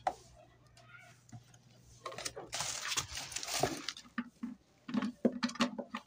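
Plastic packaging rustling and crinkling for a couple of seconds in the middle, with scattered clicks and knocks as the coffee grinder's clear plastic lid is handled.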